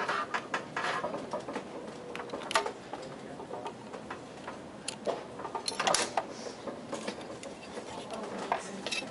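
Clicks, rattles and a few sharper knocks of metal and plastic parts being handled as a hard drive in its metal drive bracket is pulled out of a desktop computer case and its cables are moved aside.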